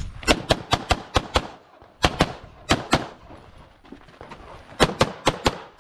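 Beretta 92X Performance 9mm pistol firing rapid strings of shots. About six quick shots come first, then two pairs about a second and a half later, then five more in quick succession near the end.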